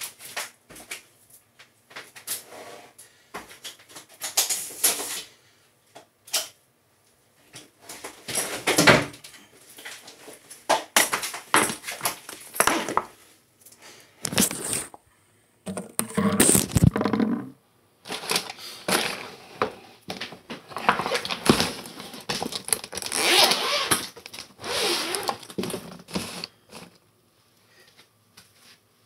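Irregular rustling, clicks and knocks of things being handled and moved about close to the phone, with bursts of cloth-like rustling now and then.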